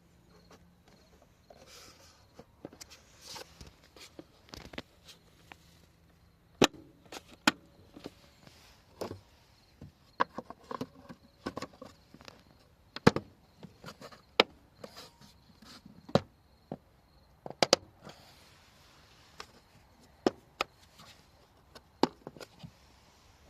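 Irregular sharp clicks and knocks of hard plastic parts being handled and snapped into place, with quiet stretches between them.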